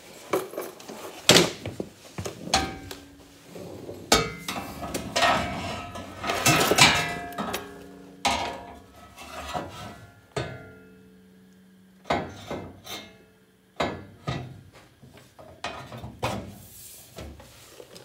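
Steel square tubing and a steel subframe connector clanking and scraping against each other and the red floor jack as they are set in place under the car. There are many irregular knocks, some leaving a short metallic ring.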